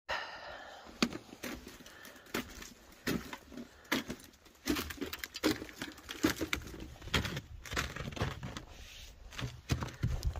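Footsteps crunching on frost- and snow-crusted fire-tower stair treads, an irregular crunch about twice a second.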